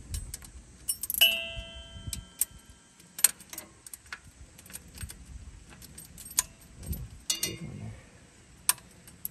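A 9/16 wrench clinking on the alternator bracket bolt as it is tightened: a string of irregular metal taps and clicks, one ringing on briefly about a second in.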